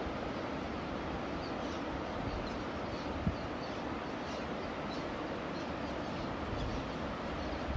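Steady outdoor nature ambience: an even rushing noise with faint, short, high chirps scattered through it, and a single low thump about three seconds in.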